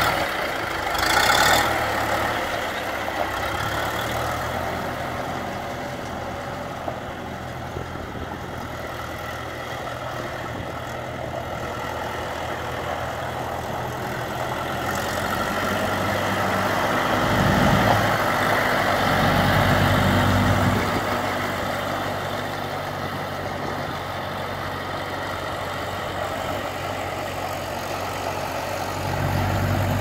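1975 John Deere 2030 tractor's engine running steadily as the tractor is driven at low speed, growing louder for a few seconds midway. Two short bursts of noise come near the start.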